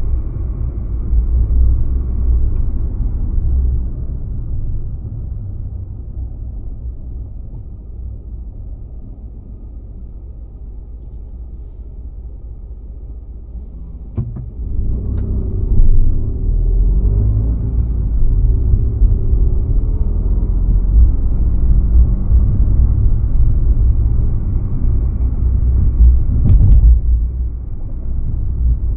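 Car driving, with a low road and engine rumble. The rumble fades over the first several seconds, then after a click about halfway through it grows louder again. A short thump comes near the end.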